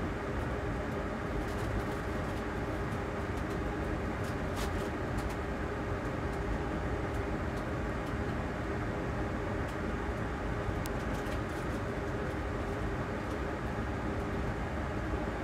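Hot air rework station blowing a steady stream of hot air at low airspeed, reflowing the solder under a USB-C power IC on a laptop motherboard. A few faint ticks come through the airflow.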